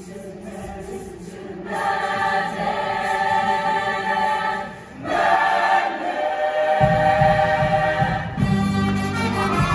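Show choir singing sustained chords that swell in loudness, with a brief drop about halfway through. A deep bass part joins later on.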